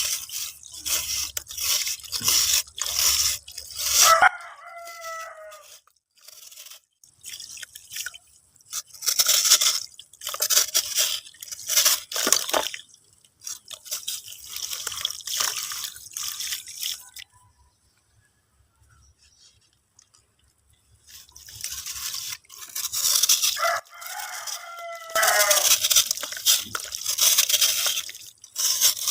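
Crisp crunching and crumbling of brittle 'dry water' in repeated bursts, stopping for a few seconds a little past halfway. A short pitched call with falling overtones sounds twice, about four seconds in and again near the end.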